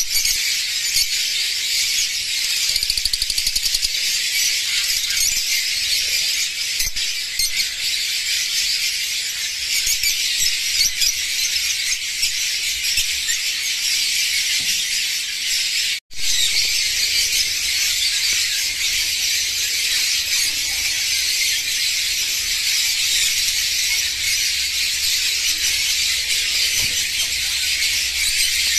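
Many caged birds calling at once, Fischer's lovebirds among them, in a dense, continuous, high-pitched chatter. It cuts out for an instant a little past halfway.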